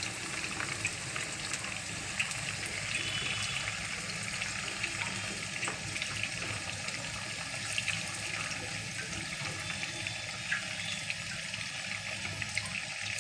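Marinated chicken pieces deep-frying in hot oil: a steady sizzle with many small crackles and pops.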